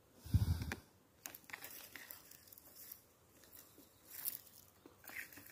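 Rustling and light crackling of forest-floor litter and undergrowth, with a dull thump about half a second in, as a mushroom is picked.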